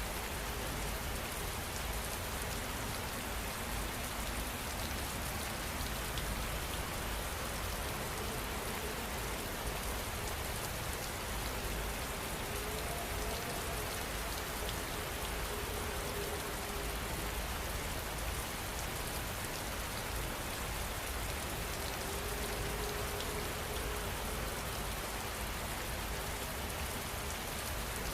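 Steady rain, an even hiss of drops falling on surfaces with a deep low rumble underneath.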